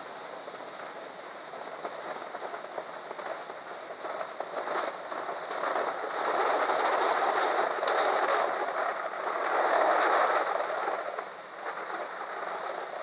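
Sambal sizzling in a hot steel wok as a metal ladle stirs and scrapes it around the pan, growing louder from about six seconds in. Heavy rain falls in the background.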